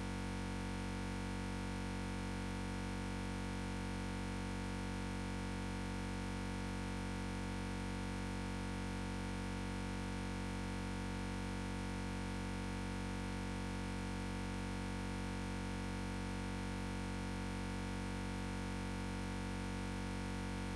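A steady, unchanging synthesizer-like drone holding the same chord without a break.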